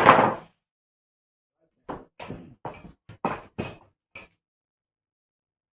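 Wooden knocks: one heavy thump at the start, then about seven quicker knocks in a row two to four seconds in, as cut cedar boards are handled and knocked against each other.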